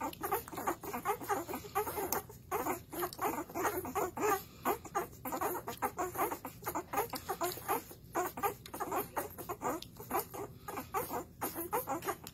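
A litter of chocolate Labrador puppies nursing: a busy, irregular patter of suckling and smacking mixed with tiny squeaks.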